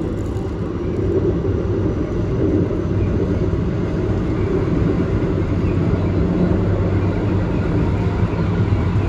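Keikyu main line commuter train running, heard from inside the car: a steady low rumble of wheels and motors that grows a little louder about a second in.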